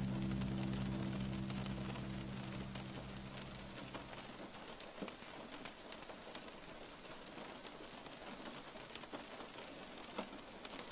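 A soft, steady rain-like hiss with scattered small crackles and ticks. A held low chord fades out over the first four seconds.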